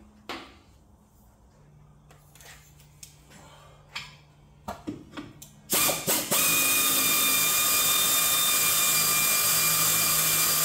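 Light clinks and knocks of hand work overhead. Then, about six seconds in, a pneumatic wrench on an air hose gives two short blips and runs steadily with a high whine, spinning out the driveshaft hanger bearing's bolts.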